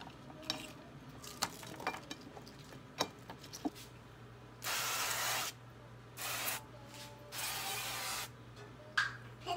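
Truffle oil spray can misting oil over vegetables in three hissing bursts, the first and last about a second long and the middle one shorter. Before the spraying there are light taps and clicks as vegetables are set down on the pan.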